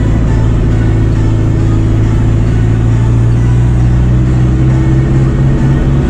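Fendt tractor's diesel engine running steadily, heard from inside the cab while driving; its low drone edges up in pitch a little around the middle and then holds.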